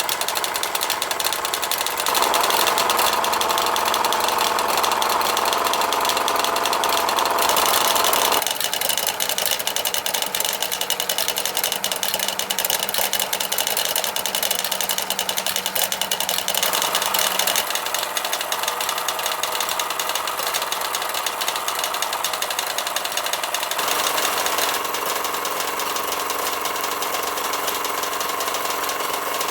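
Doll 346/5 toy horizontal steam engine running and driving Fleischmann tinplate working models, a hammer mill and a blacksmith hammering at an anvil: a steady, rapid mechanical clatter. Its tone shifts a few times.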